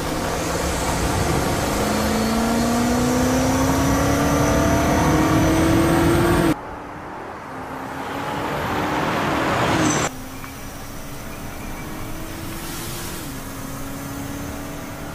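Land Rover Defender OCTA's twin-turbo V8 accelerating hard, its note rising steadily in pitch for about six seconds. The sound cuts off abruptly twice, about six and ten seconds in, into further runs of the engine. The last run holds a steadier pitch.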